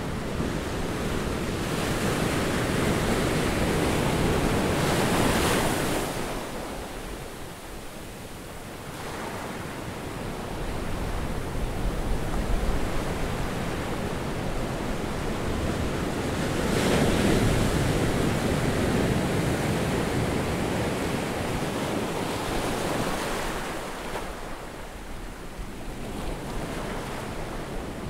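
Ocean surf breaking on a sandy beach, a steady wash of waves that swells and eases. It is loudest a few seconds in and again from just past halfway until near the end.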